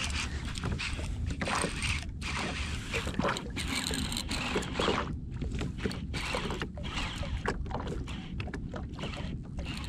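Water splashing in irregular bursts around a jet ski on the sea, over a steady low rumble.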